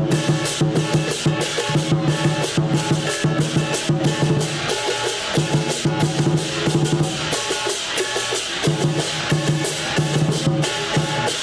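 Chinese lion dance percussion: a big drum beaten in a rapid, steady beat with gongs ringing over it.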